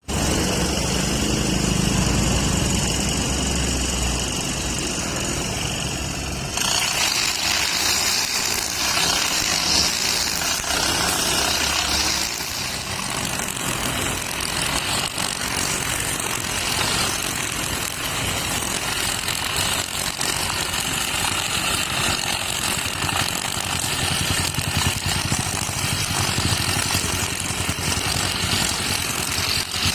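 Brush cutter with a nylon string head running steadily; about six and a half seconds in, the sound turns brighter and hissier and stays that way.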